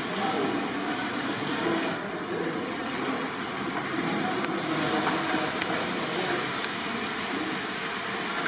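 Wet squelching and slapping of raw chicken pieces being turned over by hand in water in a large metal cooking vessel, over a steady background noise.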